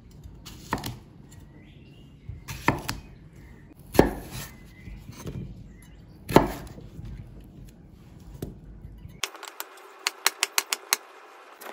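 Chef's knife cutting an English cucumber on a wooden cutting board: single slicing strokes knocking on the board a second or two apart, then from about nine seconds in a quick run of chops, several a second.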